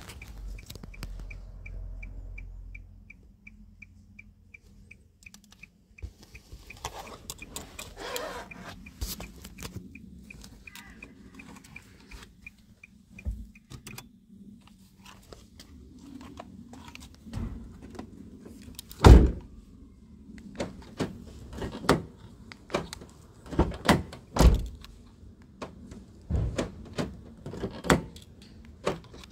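A short high beep repeating evenly, about two or three a second, for the first twelve seconds or so. Then a run of sharp clicks and thunks from the 2012 Nissan Qashqai's door and locks, with keys jangling; the loudest thunk comes a little past the middle.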